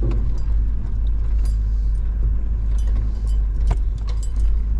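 Vehicle driving slowly over a rough dirt road, heard from inside the cab: a steady low rumble with scattered rattles and clinks from loose items jostling.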